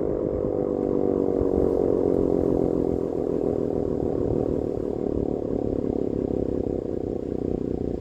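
CLM 5261 outdoor warning siren sounding a steady wail that slowly falls in pitch as it winds down at the end of a test, with a rough low rumble beneath the tone.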